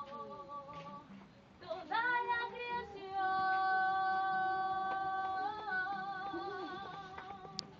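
Unaccompanied hymn singing by women's and children's voices, a phrase with a short pause and then a long held note in the middle.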